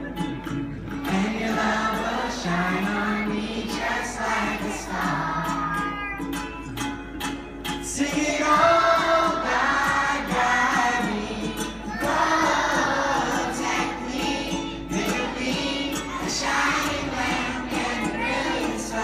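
Children's choir singing a devotional song in unison, accompanied by a strummed acoustic guitar.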